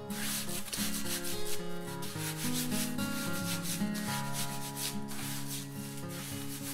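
Wooden trowel scraping and packing a wet clay, sand and straw earthen floor mix in repeated strokes, over background music with a moving bass line.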